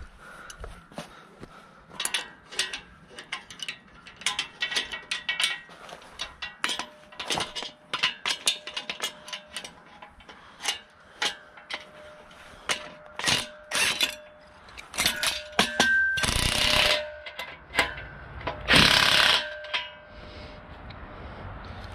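Steel engine-hoist parts and a bar clamp clicking and knocking as they are worked on, a long irregular run of sharp clicks and metal knocks. Near the end a cordless drill runs twice in short bursts of about a second each, driving a bolt.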